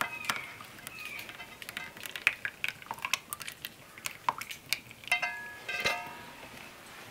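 Metal saucepan and spoon clinking and scraping as thick chocolate filling is poured out of it into a pastry-lined tart pan: a string of light sharp clicks and taps. A couple of short high-pitched calls come about five and six seconds in.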